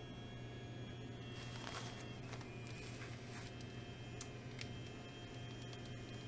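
Fujifilm Instax mini camera's motor driving a print out through its rollers: a faint, steady high whine with a few small clicks.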